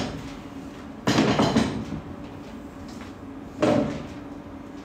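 Kitchen clatter from work at a stove counter: a short cluster of knocks and bangs about a second in and a single bump near the end, over a low steady hum.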